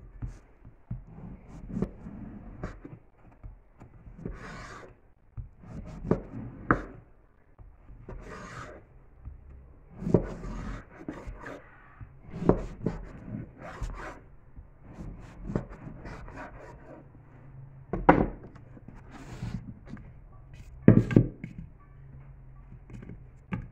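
Large kitchen knife sawing through a crusty loaf of bread on a wooden cutting board: rasping, crunching strokes through the crust, broken by knocks on the board, the two loudest in the last third.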